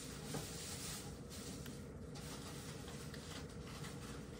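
A cat eating wet food from a bowl: soft, irregular wet chewing and licking sounds, with a small click about half a second in, over a faint steady hum.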